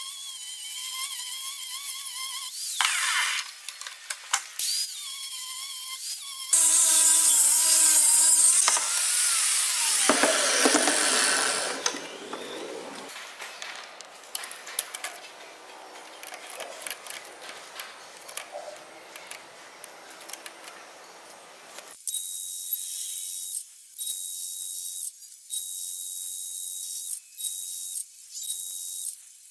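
DeWalt angle grinder with a cutting disc cutting through a steel rod, its motor whine wavering as it bites. The cut is loudest about seven to nine seconds in, and then the motor winds down with a falling tone. From about two thirds of the way in, a steady high hiss with a thin whistle runs in short spells, breaking off several times.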